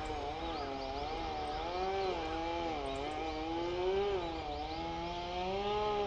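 A small engine running with a steady drone whose pitch wavers slowly up and down. Faint high bird chirps come now and then.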